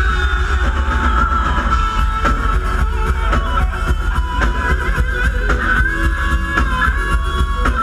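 Live rock band playing loud: electric guitar, keyboards and drum kit, with held lead notes over a driving drum beat.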